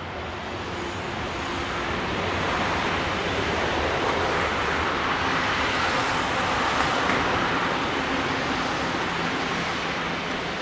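Jet engines of an Airbus A330-300 running as the airliner rolls on the ground, a steady rushing hum with a low rumble that builds over the first couple of seconds and then holds.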